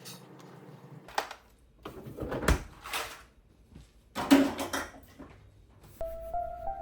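A few separate clatters and rustles of household things being handled, like a drawer or cupboard being worked. Background music with held notes comes in near the end.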